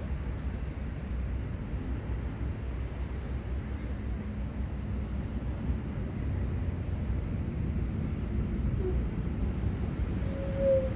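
Steady low outdoor rumble of seaside ambience, with faint short high-pitched chirps in the last few seconds.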